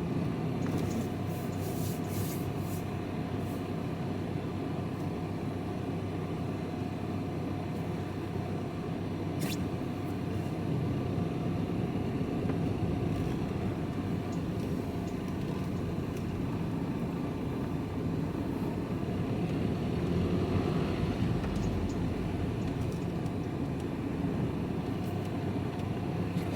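Steady engine and road noise heard from inside a moving vehicle's cab, a low rumble with a faint steady hum, and a single sharp click about nine seconds in.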